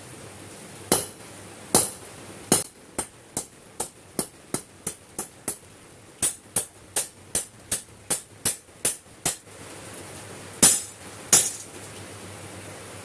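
Hammer blows on metal: three spaced strikes, then a steady run of about two and a half strikes a second for several seconds, a pause, and two louder strikes near the end.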